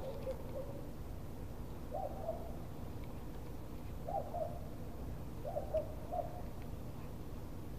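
A bird giving short, low-pitched calls about every one to two seconds, each call rising then dropping, over a steady low background noise.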